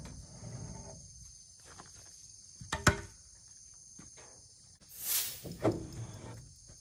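Wooden stall rails knocking and scraping as they are pulled out of a stable opening, with one sharp knock about three seconds in and a short rushing scrape about two seconds later. A steady insect drone sounds underneath.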